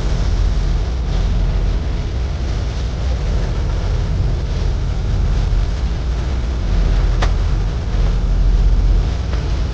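Steady roar of a brazing torch flame heating copper refrigerant pipe, with one sharp click about seven seconds in.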